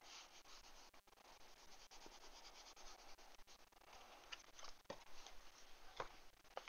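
Palms rubbing and smoothing a freshly glued paper cut-out flat onto a book page: a faint, papery rubbing with a few small sharper clicks in the second half.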